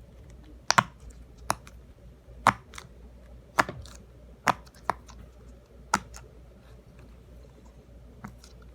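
Silicone Pop It fidget toy being pressed, its bubbles popping one at a time: sharp clicks at uneven intervals, about eight or nine in all.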